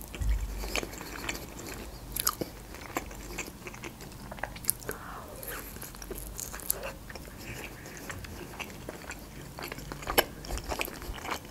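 A person biting into and chewing fried khinkali dumplings, with scattered sharp crunches and mouth clicks.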